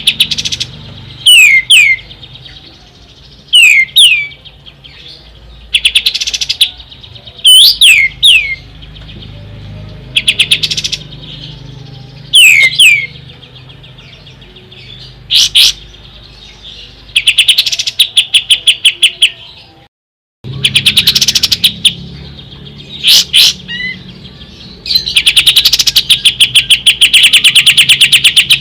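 A kapas tembak songbird singing: sharp whistled notes that drop steeply in pitch, alternating with fast rattling trills, the longest trill near the end. The sound cuts out briefly about two-thirds of the way through.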